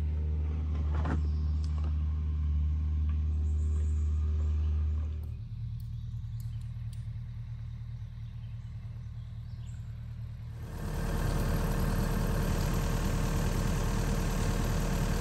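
An engine idling steadily. It drops to a quieter hum about five seconds in, and a louder, rougher running noise takes over about eleven seconds in.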